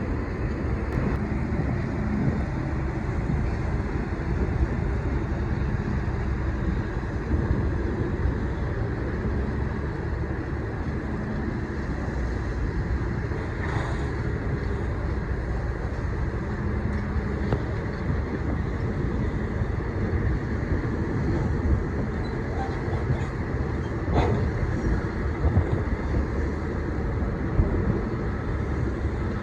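Steady low rumble of a boat engine, with a couple of faint knocks, one about halfway through and one later on.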